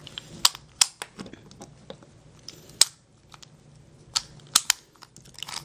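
Plastic pieces of a Maru 5x5 puzzle cube clicking as a layer is twisted a quarter-turn off and an edge piece is worked loose. The clicks are sharp and irregular, a handful of them.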